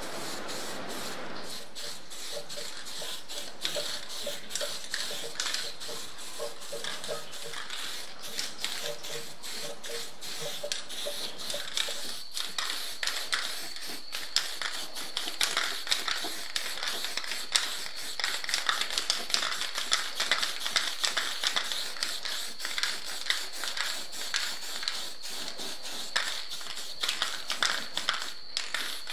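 Aerosol spray-paint can spraying black paint: a steady hiss with a faint high whistle, and many small clicks throughout.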